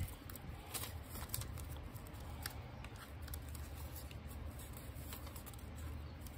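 Paper bills rustling and flicking as a stack of play money is thumbed through and counted by hand, with a few short crisp snaps of paper.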